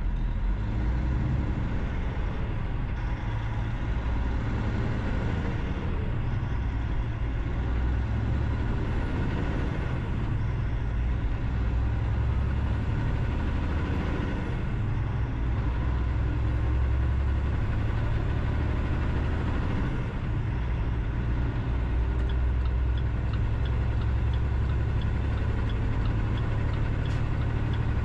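Steady low rumble of a vehicle driving along a highway: engine and tyre noise, with no sudden events.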